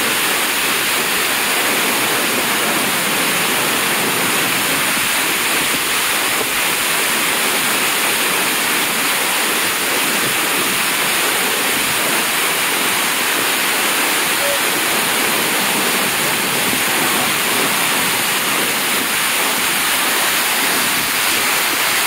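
A wide, multi-tiered waterfall in heavy flow: a loud, steady rush of white water pouring over broad rock steps, unchanging throughout.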